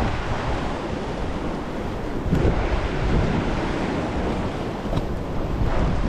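Strong wind buffeting the microphone over the rush of rough surf, a steady noisy roar heaviest in the low end, with a louder surge about two and a half seconds in.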